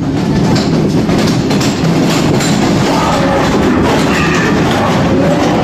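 A 1990s Barbisan ghost train car rolling along its track, with a steady rattling clatter of wheels and car body. A few held tones come in about three seconds in.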